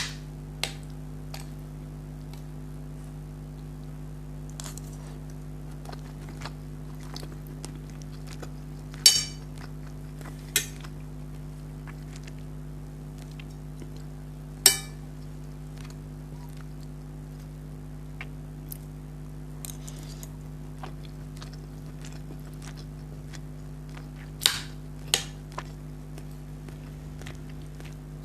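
Tableware clinking during a meal: six sharp clinks, the loudest about nine and fifteen seconds in, with a brief ring after them. Many quieter small clicks of eating come between them, over a steady low hum.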